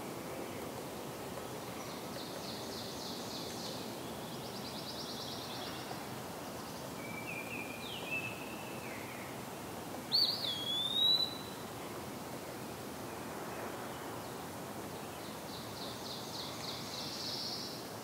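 Eastern wood-pewee singing: slow, clear, slurred whistles, the loudest a sharp swooping one a little past halfway. Short rapid trills from another bird come early and near the end, over a steady background hiss.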